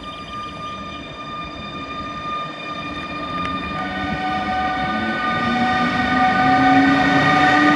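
Newag Griffin (EU160) electric locomotive drawing a passenger train, getting louder as it approaches. Its traction motors give several steady whining tones, and about halfway through a lower whine starts to rise in pitch as the train picks up speed.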